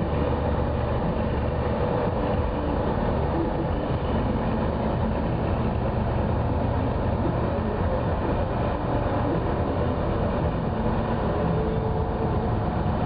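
The tour boat's engine running steadily, a constant low hum.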